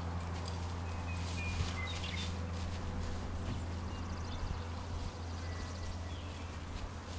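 Outdoor ambience: a steady low hum under scattered short, faint bird chirps and whistles.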